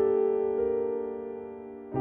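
Soft electric piano background music: a chord is held and slowly fades, and the next notes strike near the end.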